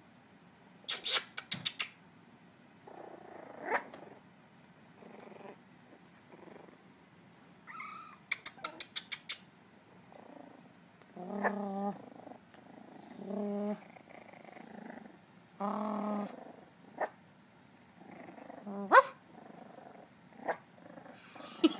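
Puppies play-fighting, giving short, wavering growls and small yips, with a few quick rattling bursts between them and one sharper, louder yelp near the end.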